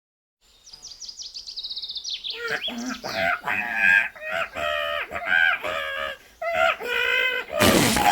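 Cartoon bird voices: a quick run of high chirps, then a string of warbling, squawky sung notes, ending in a short harsh screech.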